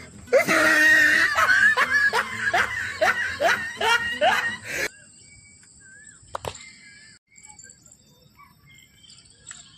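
A person laughing in a run of rhythmic bursts, cut off abruptly about five seconds in. Low background ambience follows, with a few faint chirps and a single click.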